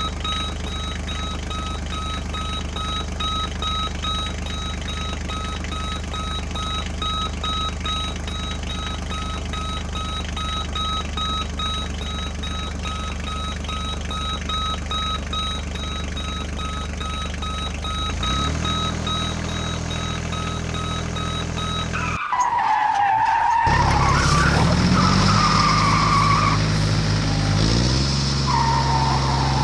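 Electronic toy-vehicle sound effects: a steady engine-like drone with a quick beep repeating about three times a second. About 22 s in it cuts to a louder wavering tone over the drone.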